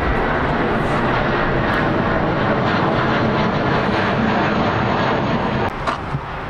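Loud, steady rushing noise of a large vehicle passing close by, dropping away sharply about six seconds in.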